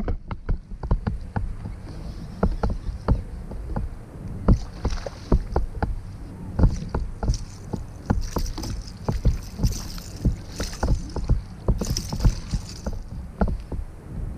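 Irregular knocks and clatter against a plastic fishing kayak, with water splashing in bursts, as a small bass is fought alongside and landed.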